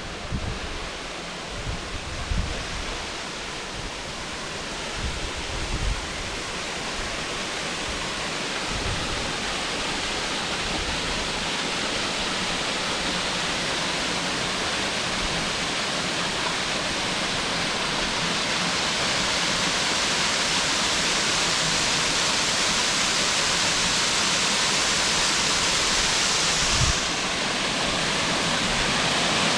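Small waterfall: a steady rush of falling water, growing gradually louder, with a few brief low bumps in the first several seconds.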